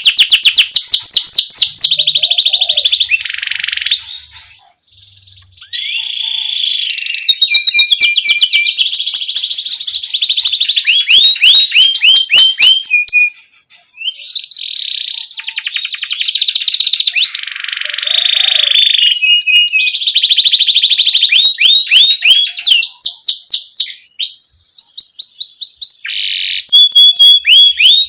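Domestic canary singing loudly in long, rapid trilled rolls and strings of quick repeated chirps, with short pauses about four seconds in and again about halfway through.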